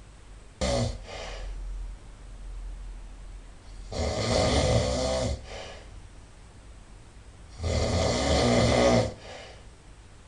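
A person snoring loudly in sleep: a short sharp snort just under a second in, then two long snores about four seconds apart, each followed by a fainter out-breath.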